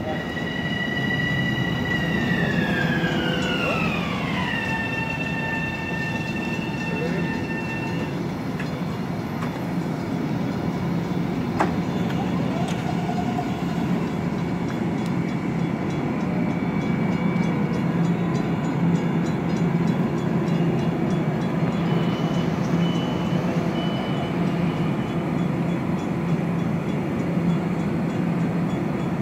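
Long Island Rail Road M7 electric train coming to a stop: its propulsion whine slides down in pitch a few seconds in, holds, then fades, leaving the standing train's steady electrical hum. A few short high beeps sound about three-quarters of the way through.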